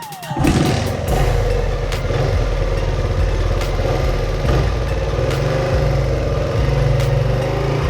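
1979 Honda XR80's small single-cylinder four-stroke engine running steadily under way, after a falling electronic music sweep that ends about half a second in.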